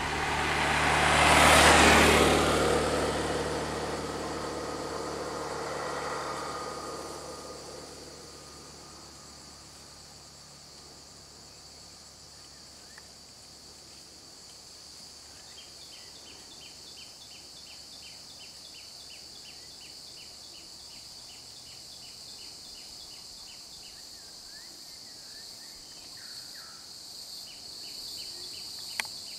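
A road vehicle passes close by, its engine and tyre noise swelling to a peak about two seconds in, then fading away over the next several seconds. Then a steady high buzz of insects, with a rapid run of regular chirps in the middle and a single click near the end.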